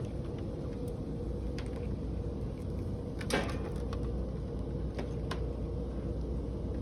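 Test leads and probe connectors being unplugged and handled on an electronics bench: a few light clicks and one short scrape about three seconds in, over a steady low hum.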